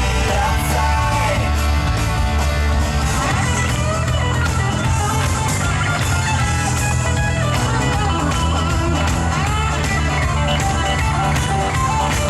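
Loud, upbeat rock-style show music with guitar and a steady beat.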